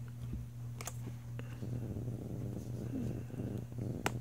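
Handling noise of a plastic clip-on lens being fitted onto a tablet's edge: rubbing and rustling, with a sharp click about a second in and a louder one near the end, over a steady low hum.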